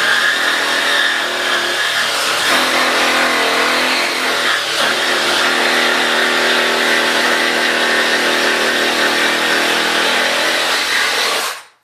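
Reciprocating saw (Sawzall) running and cutting through particle board, its motor pitch shifting a little under load, then cutting off suddenly near the end.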